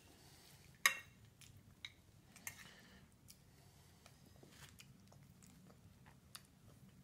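A toddler eating pasta: faint chewing and mouth sounds, with a sharp click about a second in and a few softer clicks after.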